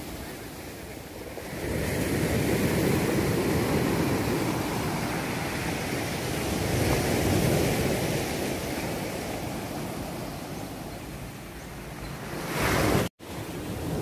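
Sea waves washing onto a rocky shore: a steady rush that swells about two seconds in and slowly eases off, then surges again and cuts out for an instant near the end.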